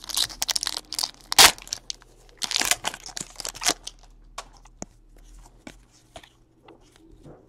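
A 2017 Donruss Baseball trading-card pack wrapper being torn open and crinkled in the hands, loudest in the first four seconds. After that come light clicks and slides as the cards are handled and flipped through.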